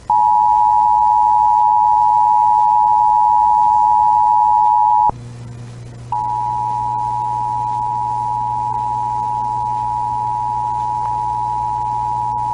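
Emergency Alert System attention signal, the two simultaneous steady tones (853 and 960 Hz) that open an alert. It sounds for about five seconds, stops for about a second, then starts again and holds, with a low hum underneath the second run.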